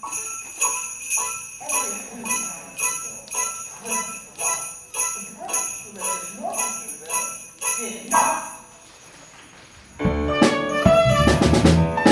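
Jingle bells shaken in a steady beat, about two shakes a second, over faint voices. Near the end, after a short lull, the pit band comes in loudly with drums and percussion.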